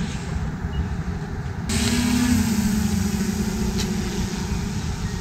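Wind rumbling on the microphone, joined about two seconds in by a steady hum from a small quadcopter drone's propellers as it hovers overhead.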